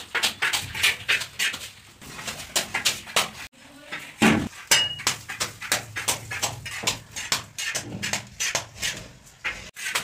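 Steel trowel clinking and scraping against a metal mortar pan as cement plaster is scooped and applied to a ceiling, several short strokes a second, with one heavier thump about four seconds in.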